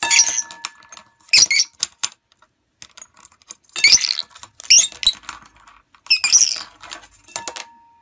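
A lovebird tossing and dragging a plastic clothes peg around inside a metal cooking pot: quick clicks and clatters of the peg against the pan, with clusters of short, high squeaky chirps five times.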